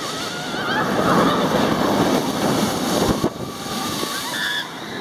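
Wind rushing over the microphone on the Manta flying roller coaster as the train skims low over the water, with water spray hissing and splashing. A brief rider's yell rises just after the start and another comes near the end.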